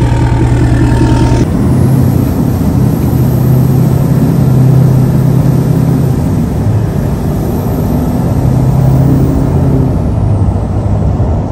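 L5P Duramax 6.6-litre V8 turbo-diesel, deleted and fitted with a 64mm turbo, running. For about the first second and a half it is heard at the exhaust tip with a steady high whistle over the engine. After that it is a low engine drone heard from inside the cab as the truck drives, rising and falling a little in pitch.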